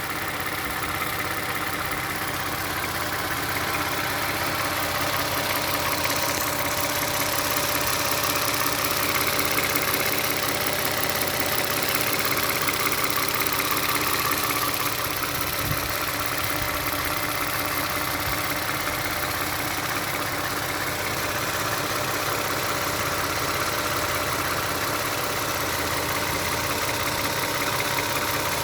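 Engine idling steadily with a rapid clicking from inside it, a newly developed noise in an engine that was previously tight and silent.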